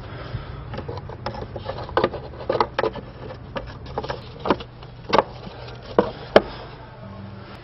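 Plastic engine cover being set down and pressed onto its mounts: a string of irregular knocks and clicks, the sharpest about six seconds in, over a steady low hum.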